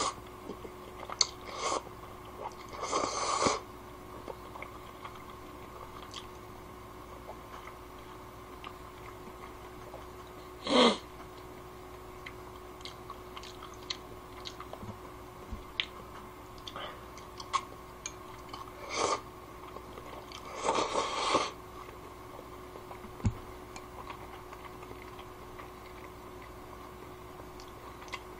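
A person eating kalguksu noodles: chewing, with a few loud slurps of noodles or broth and many small clicks, over a faint steady hum.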